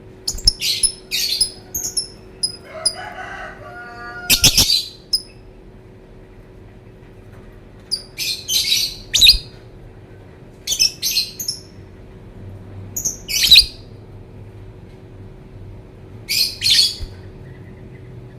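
Lovebird giving shrill, high-pitched chirping calls in short bursts, about six clusters spread a few seconds apart.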